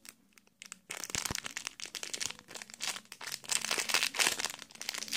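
Clear plastic packaging bag crinkling as fingers handle it and work it open. The crinkling starts about a second in, after a moment of near silence, and goes on in irregular bursts.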